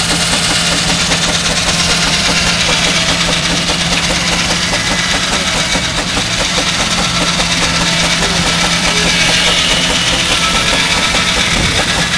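Single-cylinder Fowler steam traction engine working hard under load, belt-driving a circular sawbench as the saw cuts through a large log: a loud, steady mechanical din with a constant low hum underneath.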